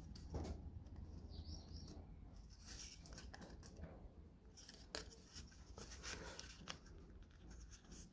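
Faint clicks, taps and scraping of small thin wooden puzzle pieces being handled and pressed together, with tweezers touching the wood.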